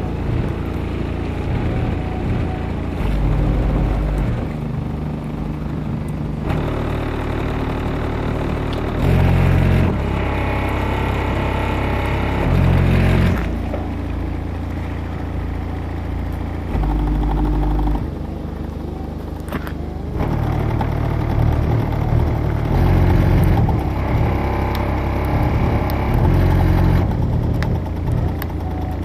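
Ural AS-D12.3 subwoofer powered by an Art Sound XE1K amplifier, playing loud bass-heavy music. Deep bass notes step from one pitch to the next every second or two.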